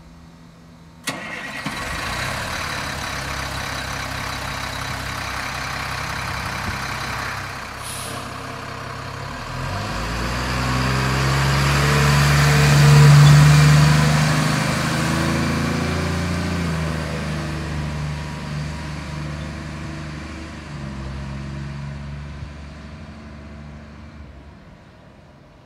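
Cummins 8.3L diesel engine of a front-loader garbage truck: running quietly, then suddenly much louder about a second in. It pulls away and passes close by, loudest around halfway, then fades steadily as the truck drives off.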